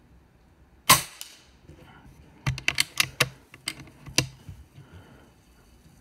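A .25 calibre Rapid Air Weapons air rifle fires one shot about a second in, a sharp crack with a short ring. A second and a half later comes a quick run of about eight sharp clicks and clacks.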